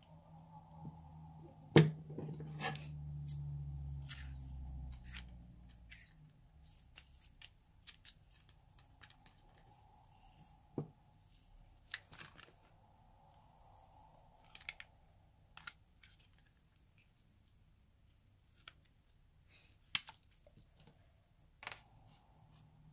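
White foam being squeezed out of the end of a modelling balloon onto slime: scattered wet clicks and small pops, a sharp pop about two seconds in, then a few seconds of low sputtering as the foam is pushed out.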